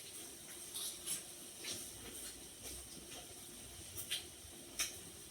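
Faint steady hiss of a hot pot of broth simmering, with about eight short sharp clicks scattered through, two of them close together about four seconds in.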